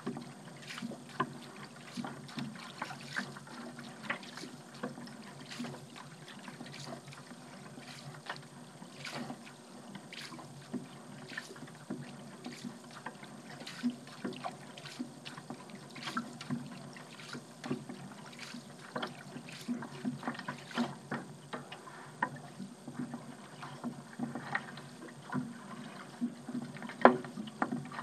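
Paddle strokes in water: irregular small splashes and drips as the blade dips in and lifts out, with a sharper splash near the end.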